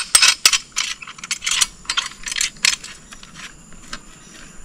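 Folding tactical shovel being folded into its mattock position: a quick run of sharp metal clicks and clinks as the head swings and locks on the handle, thinning out to a few single clicks after about three seconds.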